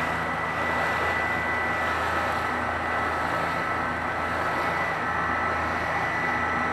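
A 48-volt liquid-cooled electric boat motor and belt drive running steadily at high power, a steady whine over the rush of water along the hull and wake.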